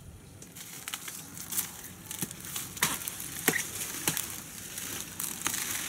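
A blade chopping into the fibrous top of a coconut palm whose crown has been killed by coconut weevil grubs. It makes a series of sharp chops, roughly one every half second to a second.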